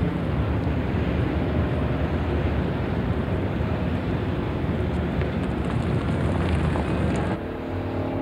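Busy city street traffic noise, a steady wash of cars and traffic. About seven seconds in it cuts off suddenly to a quieter, steady hum made of several held tones.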